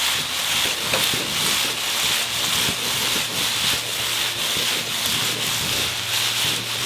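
Food frying in hot oil: a steady, crackling sizzle.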